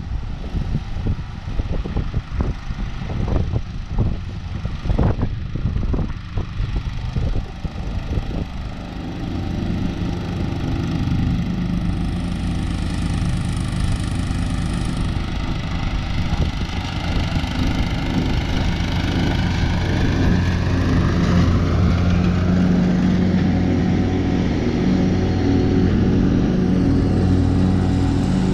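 Wind buffeting the microphone at first, then a John Deere LX176 lawn tractor's engine running steadily as it mows, growing louder about eight seconds in as the tractor draws near.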